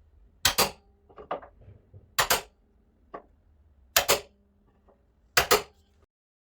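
Four sharp knocks, each a quick double hit, spaced about one and a half to two seconds apart, with lighter clicks and taps between them.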